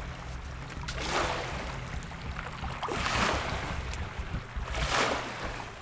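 Small outboard motor on an inflatable boat running low and steady as it comes in to shore. Its wake washes up on the sandy bank three times, about two seconds apart.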